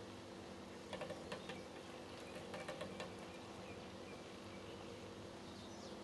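A small green bird tapping and fluttering against a window pane: a quick cluster of sharp taps about a second in and another around two and a half to three seconds, over a steady low hum.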